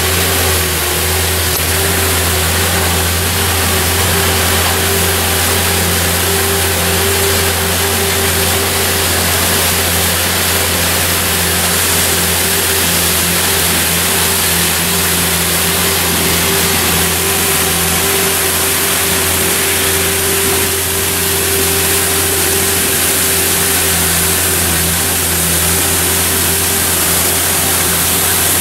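Elgin Broom Badger street sweeper running steadily while it sweeps: a constant engine hum under a loud, even hiss from the brooms and the dust-suppression water spray.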